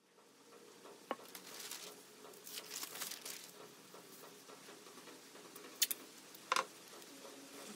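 A sheet of paper rustling and crinkling as it is smoothed flat by hand on a wooden workbench, then two sharp knocks a little over half a second apart as a roll of masking tape is set down on it.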